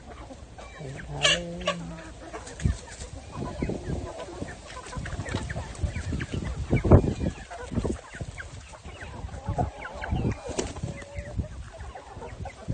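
A flock of chickens clucking and calling, with a loud squawk about a second in and scattered sharp knocks, the loudest about seven seconds in.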